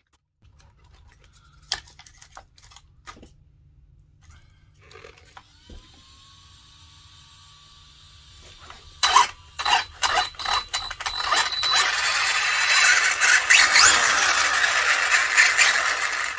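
Scattered clicks and handling noise, then a rising tone that holds steady about six seconds in. From about nine seconds there are loud clicks, and then a loud, dense mechanical clatter of gears, most likely the freshly repaired RC buggy's drivetrain being run on the bench.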